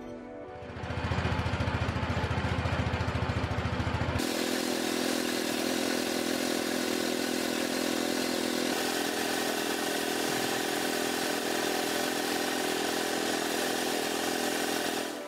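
A motor runs with a rapid low pulsing for about three seconds. Then, about four seconds in, a paint spray gun starts a loud, steady hiss of compressed air that lasts until the end.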